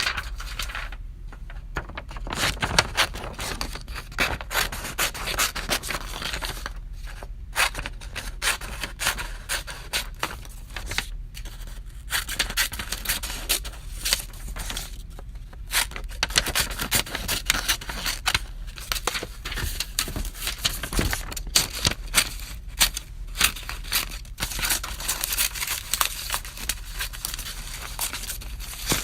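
Scissors cutting paper: a run of irregular snipping and scraping strokes with brief pauses between cuts.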